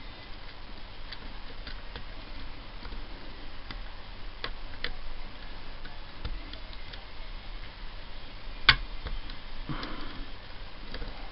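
Scattered faint metallic clicks of a lock pick working the telescopic pins of a Mul-T-Lock dimple cylinder, with one sharper, louder click about nine seconds in.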